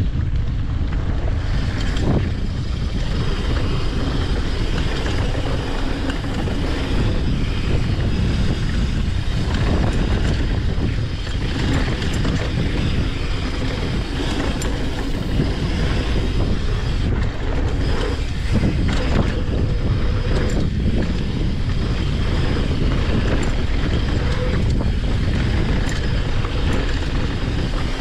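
Mountain bike descending a gravel and dirt trail at speed: steady wind buffeting on the microphone over tyres rolling on loose gravel, with the bike's chain and frame rattling and knocking over bumps.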